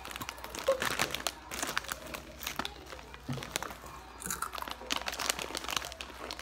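Bag of Hot Cheetos crinkling as it is handled, a dense run of small crackles.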